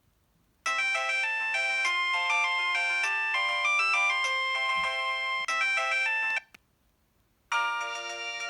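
Preloaded ringtones on a Mobiwire Aponi mobile phone. A synthesized melody of quick notes plays for about six seconds and stops. After a pause of about a second, the next ringtone starts near the end.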